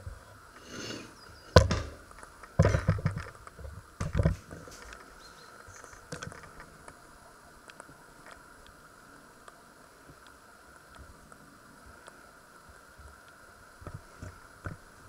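Several knocks and clunks of handling in the first four seconds or so. Then a quiet stretch with a faint steady hum and a few small ticks.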